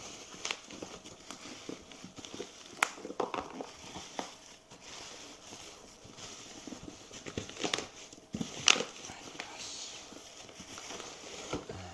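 Plastic bubble-wrap mailer being pulled and peeled off a cardboard box, crinkling and crackling irregularly, with a sharp crackle about three seconds in and the loudest one near the end.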